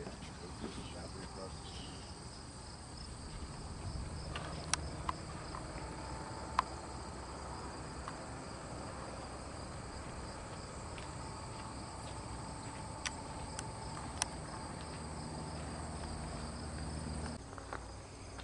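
Insects chirping in a steady, high, pulsing drone, with a few sharp clicks scattered through, one about six seconds in the loudest.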